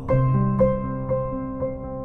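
Background music: an instrumental passage of picked notes, about two a second, over a held low note.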